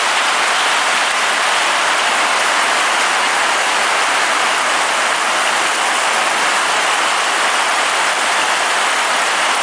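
Heavy rain pouring down hard, a steady even hiss with no change in strength.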